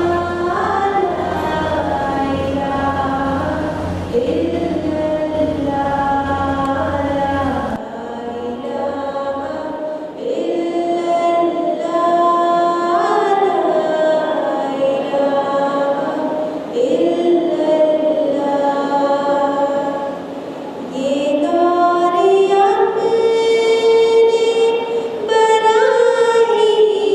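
A woman singing an Urdu tarana solo, with no instruments, holding long notes that slide up and down between pitches. A low steady hum sits under the voice and stops about eight seconds in.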